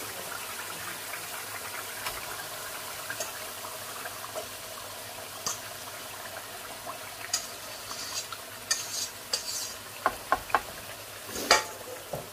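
Tomato-and-yogurt masala sizzling steadily in a frying pan as raw marinated chicken pieces are tipped in and stirred. Scattered clicks of utensils against the pan come in over the second half, with the loudest knocks shortly before the end.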